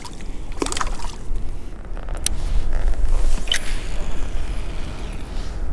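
Low rumbling noise of water moving against a plastic kayak hull, with a few scattered clicks and taps.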